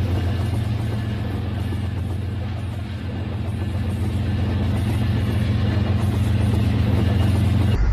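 Battery-powered toy trains running on plastic track: a steady electric-motor and gear hum with the rattle of wheels on the rails. It fades as one train draws away about three seconds in and grows again as another approaches, then changes suddenly to a deeper, louder hum near the end.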